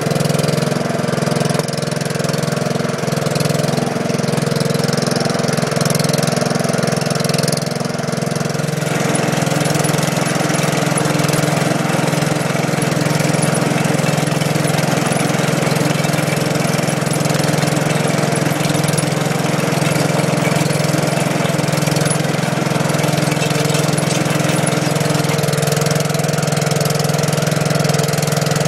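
Gravely two-wheel tractor's engine running steadily under load, driving a trencher's digging chain through soil. The sound turns rougher and noisier from about nine seconds in.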